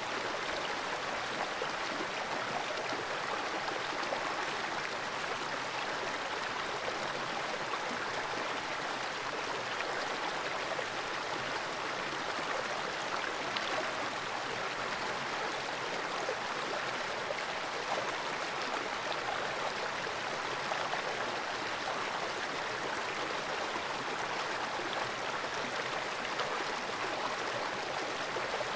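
Fast-flowing creek water rushing steadily, heard by a camera submerged in a small pool of the stream.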